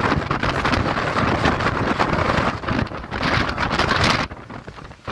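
Storm-force wind buffeting the microphone in loud gusts, dropping briefly in a lull near the end.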